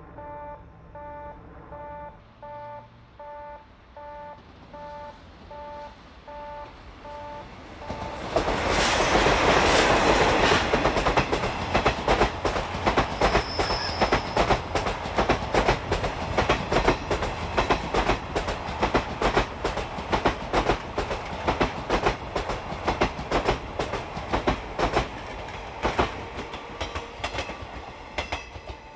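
A railway level-crossing alarm dings in two alternating tones about twice a second. About eight seconds in, the Hokutosei sleeper train of 24-series blue coaches rushes past and the alarm is drowned out. Its wheels then click rapidly and rhythmically over the rail joints, with a brief wheel squeal, as the train goes by.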